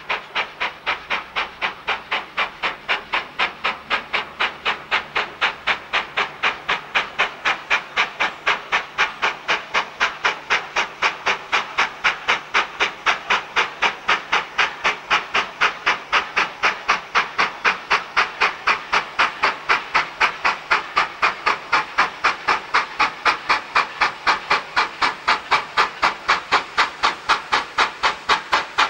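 Steam locomotive working steadily toward the listener, its chimney exhaust beating evenly at about three beats a second with steam hiss between the beats, growing slightly louder as it approaches.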